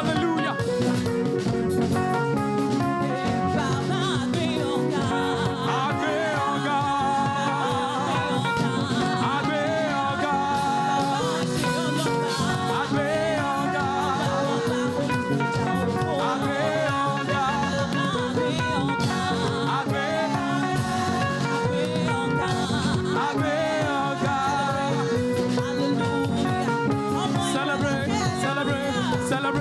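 Live gospel praise music: a choir singing over a band, steady and loud throughout.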